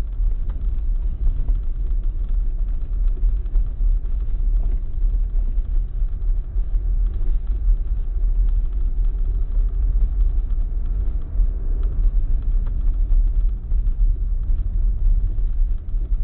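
Audi Q5 heard from inside its cabin while driving along a rough dirt track: a steady low rumble of tyres and suspension over the uneven ground, with the engine underneath and a few faint knocks from the road surface.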